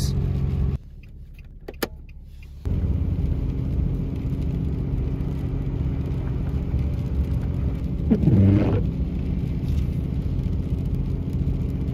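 Truck engine and road noise heard from inside the cab while towing a trailer, a steady low drone. It drops away for about two seconds near the start. A short vocal sound comes about eight seconds in.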